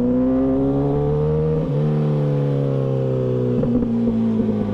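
MV Agusta F4 sport bike's inline-four engine under way at low speed. The revs climb, then step about one and a half seconds in, as at a gear change, then sink slowly as the bike slows. They drop again near the end.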